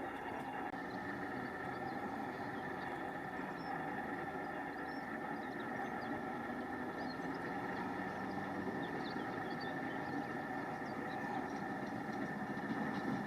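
A motor running steadily at an even pitch, with faint short bird chirps over it.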